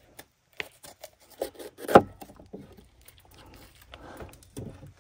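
A chef's knife cutting into a red bell pepper over a wooden cutting board: scattered crisp cuts and small knocks, with one louder knock about two seconds in.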